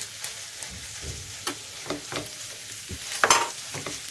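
Minced meat (kofta) frying with onions in a pan, sizzling, while a spoon stirs it, knocking and scraping against the pan; a louder clatter a little past three seconds in.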